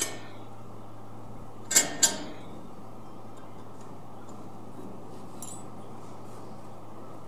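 Two sharp metallic clicks, close together about two seconds in, as the stainless steel cover of the wet grinder's grinding-plate housing is seated and clamped by hand, over a steady low hum.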